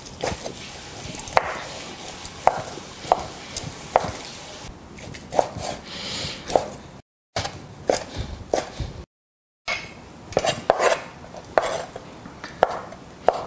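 Large kitchen knife slicing boiled pork belly on a wooden cutting board, the blade knocking on the board about once a second. The sound cuts out completely twice for a moment, around the middle.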